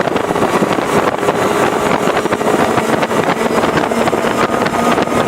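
Twin Mercury 400R racing outboards running at high speed, about 72 mph, with wind buffeting the microphone over a dense rush of air and water. Faint steady engine tones sit under the noise.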